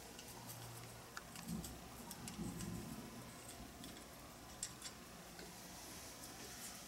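Faint, scattered small metal clicks and ticks as an old Harley-Davidson distributor head is handled and its timing adjustment stud is worked loose by hand.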